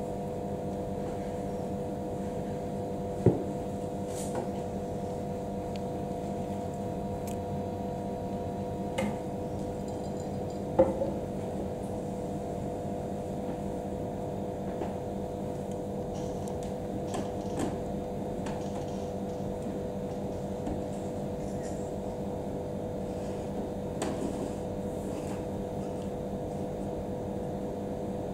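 A steady mechanical hum made of several fixed tones, with a few sharp knocks, the loudest about three seconds in and about eleven seconds in, and a few fainter ones later.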